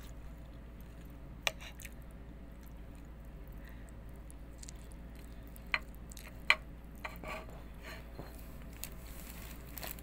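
A person eating: soft chewing with three sharp clicks, over a steady low hum.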